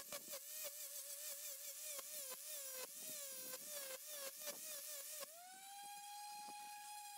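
High-pitched power-carving tool motor whining as it cuts wood, its pitch sagging and wavering under load with rapid chattering clicks. About five seconds in the clicks stop and the whine rises to a steady higher pitch as the tool runs free.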